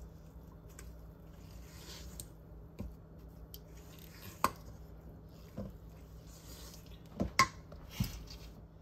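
Silicone spatula stirring thick molasses cookie dough by hand in a stainless steel mixing bowl: soft squelching and scraping strokes, with a few sharp clinks against the metal bowl in the second half.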